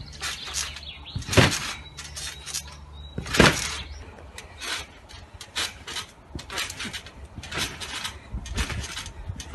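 Garden trampoline bounced on: a squeak and thump from the springs and mat with each landing, about once a second.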